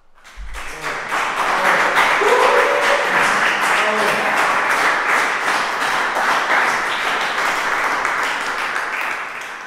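Audience applauding, starting suddenly and tapering off near the end, with a voice briefly calling out within it.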